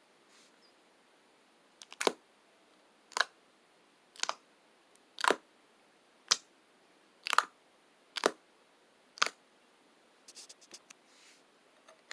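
Eight sharp clicks about a second apart, followed by a few faint small clicks near the end.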